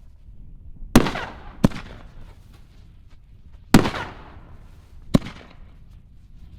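King Dragon 6-inch canister shells going off: four sharp, hard-hitting booms, the loudest about a second in and just before four seconds, each trailing off over a second or so.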